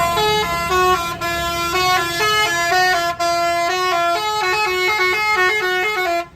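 Bus 'telolet' horn: a set of tuned air horns sounding several notes at once and playing a quick, jumpy melody that changes note about four times a second, then cuts off suddenly near the end.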